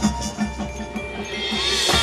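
High school marching band playing its field show: mallet percussion over a steady pulse of low notes and a sustained bass, with a wash of high sound swelling through the second half.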